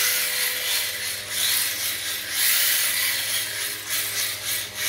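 HSP 94123 Flying Fish 1:10 electric drift car with a brushed motor, running on a tile floor: a hissing scrape of its tires sliding across the tiles, mixed with the whir of the motor and drivetrain. It swells and eases every second or so.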